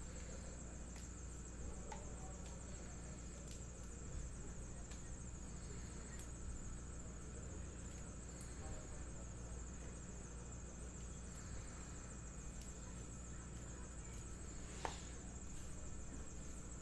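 Faint handling of trading-card packs and cards, with scattered light ticks and rustles and one sharper click near the end, over a steady low hum and a thin high-pitched electrical whine.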